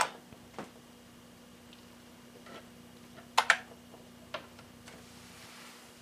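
A few sharp clicks of computer keys being pressed, the loudest a quick double click about three and a half seconds in, over a faint steady hum.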